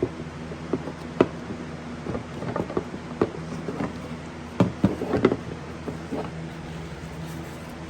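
A run of irregular plastic clicks and knocks as the engine air filter tray is handled in and out of its airbox, loudest in a cluster around the middle, over a steady low hum.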